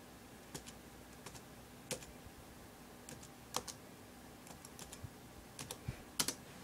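Typing on a laptop keyboard: scattered key clicks in short irregular runs, with a quick pair of louder clicks near the end.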